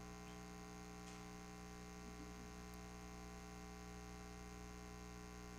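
Steady electrical mains hum and buzz, a stack of many unchanging tones, with a faint tick about a second in.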